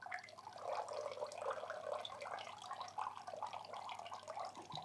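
Dirty wash water draining out of a Rovin Ecospin manual washing machine's drain tube and splashing steadily into a bucket below, easing off near the end.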